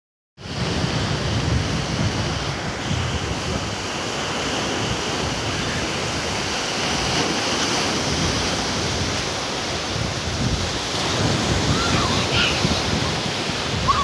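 Sea surf washing onto a sandy beach: a steady rush of small breaking waves, with wind buffeting the microphone.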